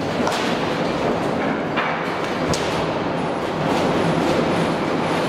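Hydraulic shake table driving a full-scale three-storey timber-panel prefab building through a triaxial 1 g simulated earthquake: a steady heavy rumble and rattle with a low hum under it, broken by a few sharp knocks from the shaken structure in the first three seconds.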